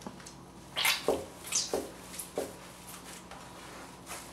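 Bare hands kneading a wet paste of ground meat and soaked bulgur for kibbeh in a metal pan: a series of irregular soft squelches, fewer and fainter in the second half.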